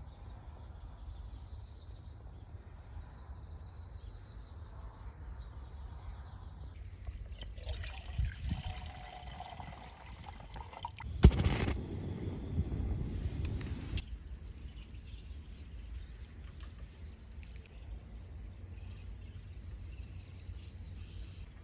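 Wind rumbling on the microphone, with a faint high pulsing chirp in the first several seconds. Midway comes a stretch of rustling noise with one sharp click about eleven seconds in.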